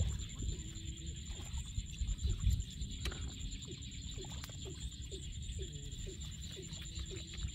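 Bare hands digging and churning in shallow water and wet mud: sloshing and splashing, heaviest about two seconds in, with short gurgling squelches of the mud in the middle. A steady high-pitched whine runs underneath.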